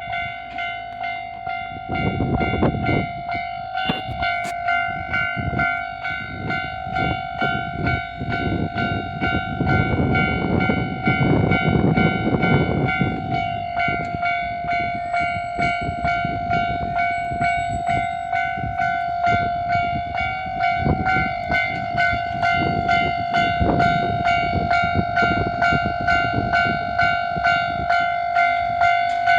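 Japanese level-crossing warning bell ringing in an even, repeating electronic ding. In the first half, a Kintetsu Hinotori limited express train passes with a loud rushing and clatter of its wheels on the rails.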